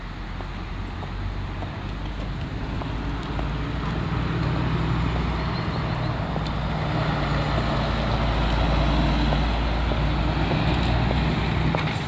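Motor traffic: a steady, low engine drone with a wash of road noise, growing louder over the first several seconds and then holding.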